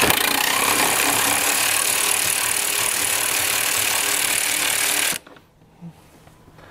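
Cordless electric ratchet running, spinning a battery bolt out, with a steady motor whir that cuts off suddenly about five seconds in.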